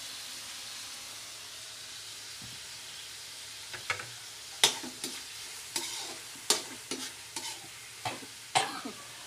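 Tomatoes frying in a metal wok with a steady, soft sizzle. From about four seconds in, a metal spatula scrapes and clinks against the wok a dozen or so times as the food is stirred.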